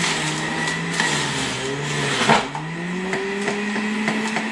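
Centrifugal juicer motor running while food is pressed down its feed chute: the hum sags in pitch under the load, with one sharp knock a little past two seconds in, then climbs back to a steady, slightly higher hum.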